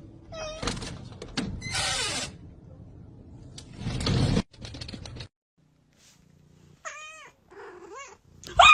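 Domestic cat meowing in a few short calls that bend in pitch, with loud, short noisy bursts between the first calls.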